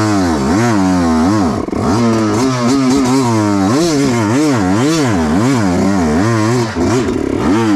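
Dirt bike engine revved hard in repeated rising and falling bursts, about one to two a second, as the bike is stuck on the trail; the engine stops suddenly near the end.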